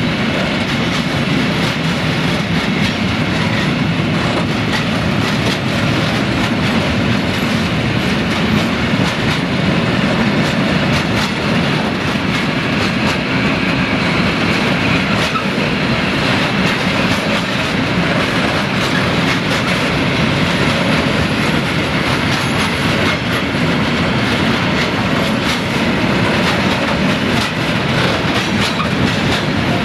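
A long DB Cargo freight train of high-sided open wagons rolling past: a steady rumble of wheels on rail with a constant run of wheel clicks.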